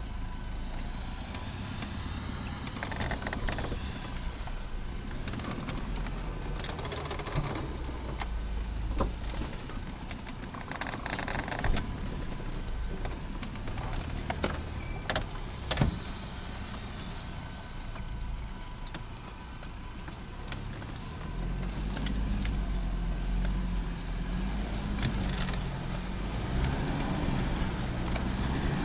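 A 4x4's engine running, heard from inside the cab as it crawls over a rough off-road track, with scattered knocks and rattles from the bumps. The engine gets louder about three-quarters of the way through.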